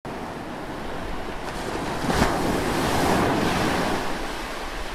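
Intro sound effect: a rushing whoosh like surf. It swells sharply about two seconds in, stays loud through the middle and eases off near the end.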